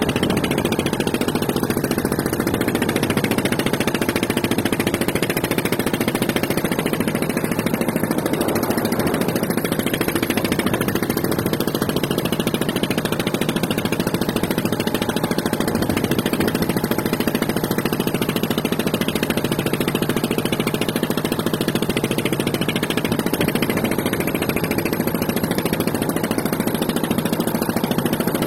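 An engine running steadily, holding the same level with no change in pitch.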